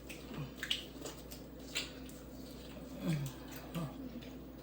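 Eating at close range: scattered wet smacks and light clicks of chewing and handling seafood boil, with a few brief low hums.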